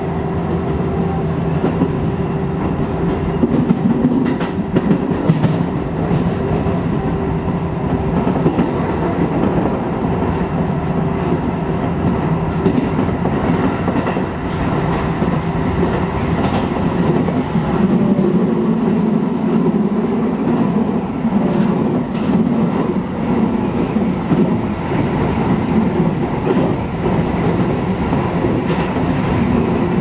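A Shin-Keisei 8800 series electric train running along the line, heard from inside the driver's cab. There is a steady running hum, and the wheels click over the rail joints.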